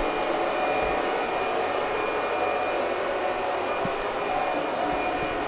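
Cooling fans of a Bitmain Antminer S19J Pro ASIC Bitcoin miner running at full speed in its start-up phase, a steady airy rush with a faint high whine, muffled by the insulated food cooler box it is enclosed in. The fans are beginning to ease down slightly.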